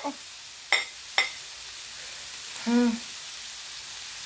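Two sharp knife strikes on a chopping board while radishes are cut, over a steady faint sizzle from a frying pan on the hob. About three seconds in, a short hummed vocal sound.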